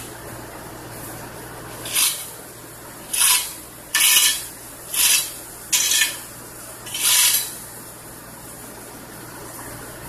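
Road roller's engine running with a steady low hum, broken by six short, loud hisses between about two and seven seconds in.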